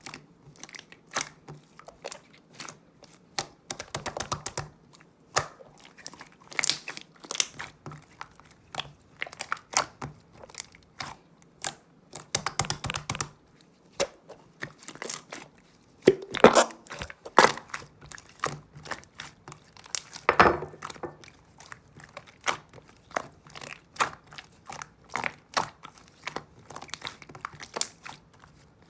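Slime being pressed, stretched and folded by hand, giving irregular sticky clicks, pops and crackles, with louder bursts of crackling now and then.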